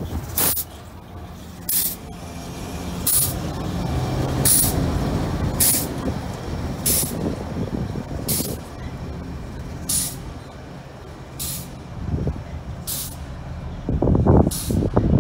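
Pair of diesel shunting locomotives, an FS D245 and D146.2030, running as they pull away slowly, with a steady low engine drone. Short sharp hisses come about every second and a half. The engine sound grows louder near the end.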